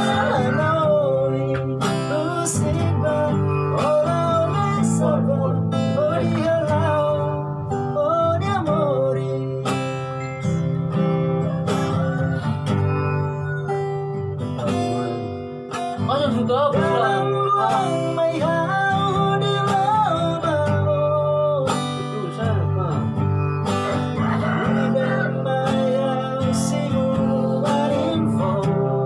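A song sung to a strummed acoustic guitar: a singer's wavering melody carried in phrases over the steady guitar chords.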